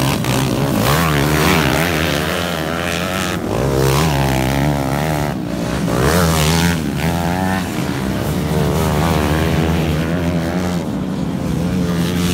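Motocross dirt bike engines revving hard on a race lap, their pitch rising and dropping again and again with throttle and gear changes.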